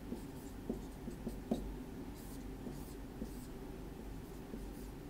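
Dry-erase marker writing on a whiteboard in short, irregular strokes.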